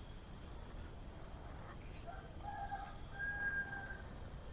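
A rooster crowing faintly once, about halfway through, over a steady high drone of crickets and insects.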